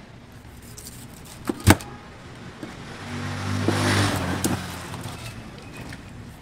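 Two sharp knocks about a second and a half in, then a motor vehicle's engine swells and fades as it passes, loudest around the middle.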